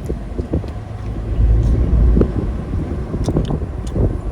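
Low steady rumble of a car, with a few light clicks and knocks over it.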